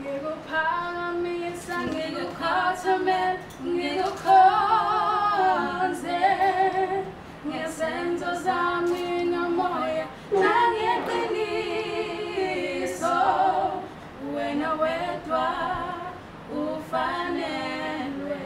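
Background vocal music: voices singing with little or no accompaniment, a woman's voice leading, in phrases of a second or two with held notes and vibrato.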